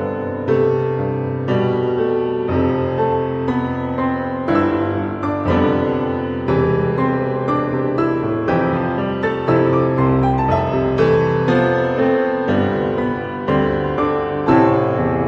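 Background piano music, with chords or notes struck about once a second and left to ring.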